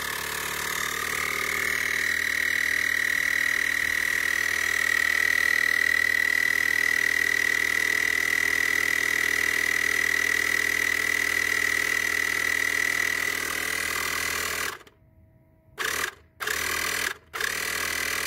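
Brookstone 12-volt portable air compressor running steadily with a high whine, pumping air into a car tire. About fifteen seconds in it stops, then runs again in three short bursts.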